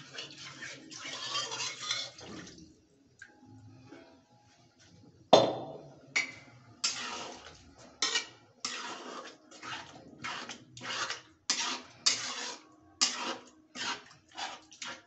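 Water poured from a pan into an iron kadai of curry gravy, splashing for about two seconds. About five seconds in a loud metal clank, then a ladle stirring the gravy and scraping against the kadai in quick strokes, about two a second.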